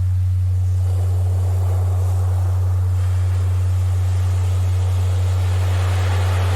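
A steady low hum-like tone, a Rife frequency, sounding without a break over ocean surf, with waves washing in and easing back, louder near the end.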